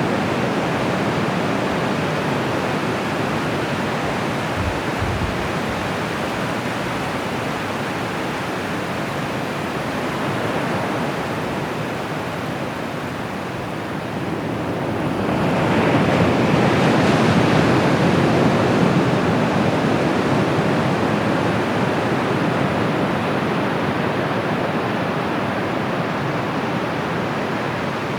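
Ocean surf washing onto a beach in a continuous rush, with one bigger wave breaking about halfway through and its wash slowly fading.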